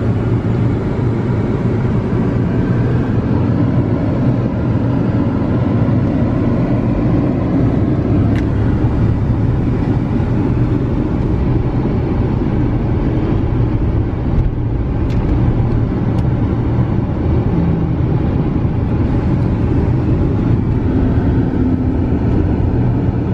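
Steady low rumble of a car's engine and tyres heard from inside the cabin of the moving car.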